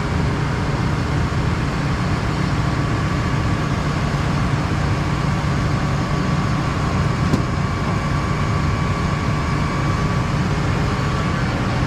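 A grain auger and a tractor engine running steadily while soybeans are augered into a bin. A low drone is topped by a thin, steady whine.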